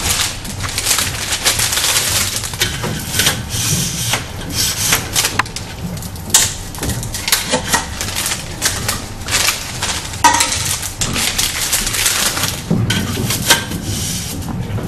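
A stack of disposable cups being unwrapped from its plastic sleeve and slotted into a vending machine's cup column: a dense run of crinkling and light clattering clicks.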